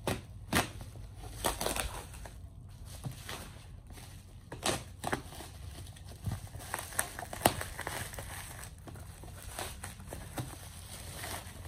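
Black plastic bubble wrap and packing tape being slit with a utility knife and pulled off a box: irregular crinkling and crackling with a few sharper snaps.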